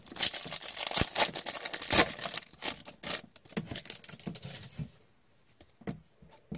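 Foil wrapper of an O-Pee-Chee Platinum hockey card pack crinkling in gloved hands as the stack of cards is pulled out and handled, dense crackling for about five seconds, then only a few soft taps as the cards are sorted.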